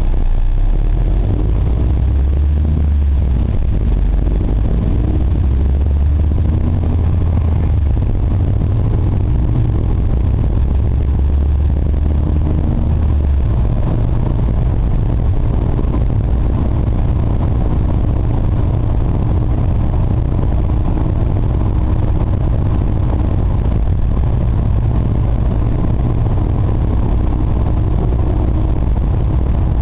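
Engine drone and road noise of a vehicle driving while towing a trailer loaded with a small excavator. The deep drone shifts about halfway through.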